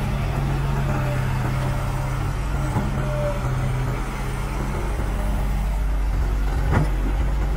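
Caterpillar hydraulic excavator's diesel engine running steadily as the machine digs and swings its bucket of earth, with one sharp metallic knock near the end.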